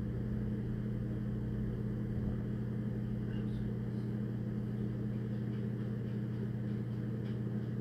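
Steady low hum with a second, higher tone above it, unchanging, and a few faint ticks about three to four seconds in.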